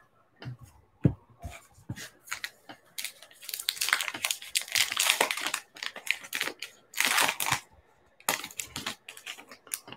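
The wrapper of a Topps Allen & Ginter baseball card pack being torn open and crinkled by hand. A few light clicks of cards being handled come first, then a long tear about three seconds in and two shorter crinkling tears near the end.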